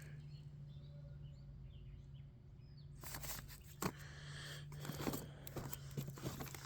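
Quiet knocks, taps and rustles of boxed firework cakes being handled, starting about halfway through, over a steady low hum and a few faint bird chirps.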